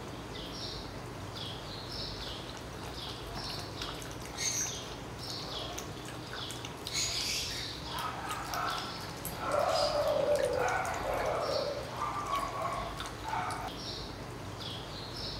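Small birds chirping over and over, short high falling chirps about two a second. A louder, lower broken sound joins in for a few seconds in the middle of the stretch.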